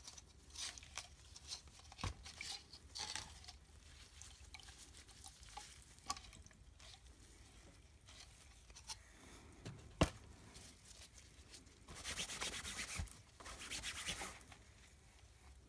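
Faint sounds of gloved hands handling a piece of cloth while wetting it in a small cup of water: scattered small clicks and one sharp knock about ten seconds in. Near the end come a couple of seconds of scratchy rubbing as the cloth is worked against the paper lining of the tray.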